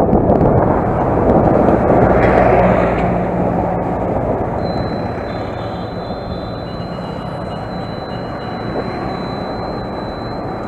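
Motorcycle engine running and wind rushing past a helmet chin-mounted action camera while riding, loudest over the first three seconds and then easing off. A thin steady high tone joins about four and a half seconds in.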